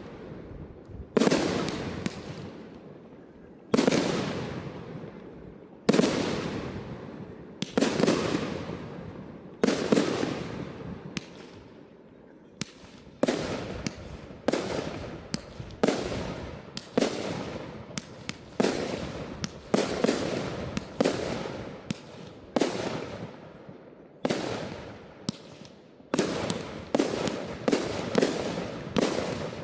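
Professional fireworks display: a series of loud bangs, each followed by a long rolling echo that dies away. They come about every two seconds at first and crowd closer together near the end.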